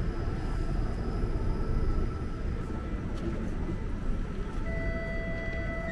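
Bombardier Flexity Outlook streetcar drawing up and stopping at the curb over a steady low street rumble, with a faint high whine that fades away. Near the end a steady electronic tone sounds for under two seconds as the doors open.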